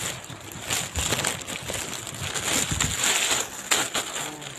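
Packaging crinkling and rustling as it is handled, with a few soft knocks.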